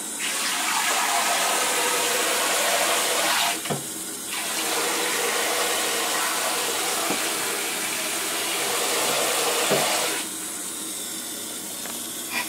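Water running from a hand-held shower head into a bathtub, in two spells: it starts just after the beginning, breaks off briefly about three and a half seconds in, then runs again until about ten seconds in.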